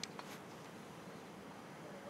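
Faint, steady rolling noise of a two-car tram set moving away along the track, with a couple of light clicks right at the start.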